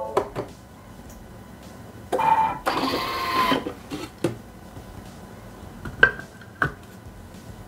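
Bimby (Thermomix) TM6 food processor: light plastic clicks from its selector knob, then a short mechanical whir about two seconds in as the lid's locking arms release at the end of the kneading program, followed by single plastic clicks as the lid is lifted off and set down.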